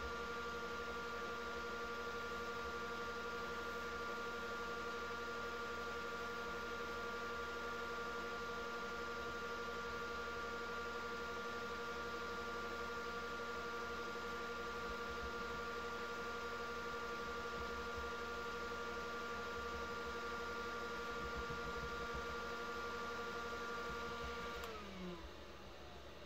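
Wood lathe running steadily with a felt buffing wheel in its chuck, a whine made of several steady tones while a resin dragon's egg is held against the wheel and polished. Near the end the pitch drops quickly and the sound fades.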